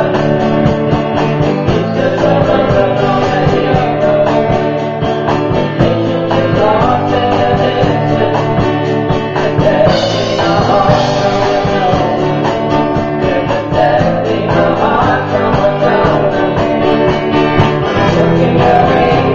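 Live rock band playing a song: electric guitar, electric keyboard and a drum kit keeping a steady cymbal beat.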